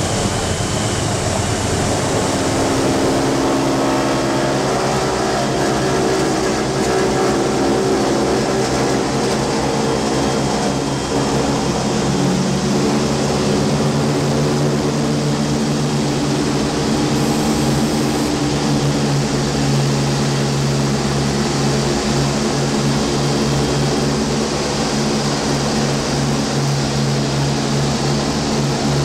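The B-29 Superfortress's four Wright R-3350 radial piston engines and propellers running loudly, heard from inside the cockpit and nose. Their pitch shifts during the first dozen seconds, then holds steady.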